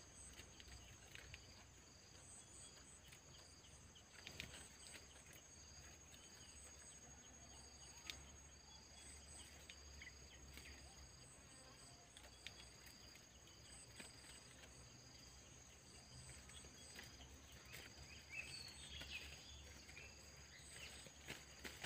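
Near silence with faint insects chirping: a steady high whine and a regularly pulsing high chirp, with a few faint clicks.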